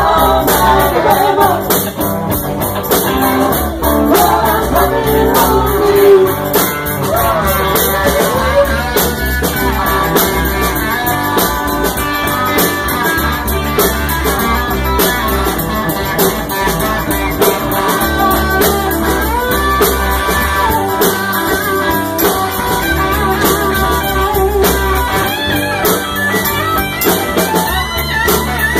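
Live rock band playing: electric guitars and drums with voices singing.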